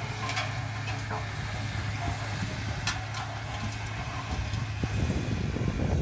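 Crawler bulldozer's diesel engine running steadily, with a few sharp clanks in the first half. Near the end the sound turns louder and rougher.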